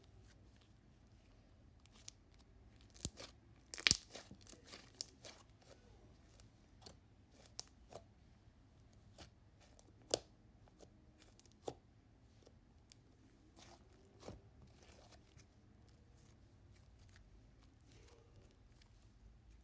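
Slime being handled, poked and squished, giving irregular sharp clicks and crackly pops, loudest and thickest about four seconds in, then sparser.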